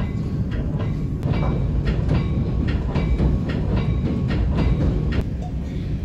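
Passenger train running along the line, heard from inside the car: a steady low rumble with the clickety-clack of the wheels over rail joints, about three clicks a second, thickest through the middle.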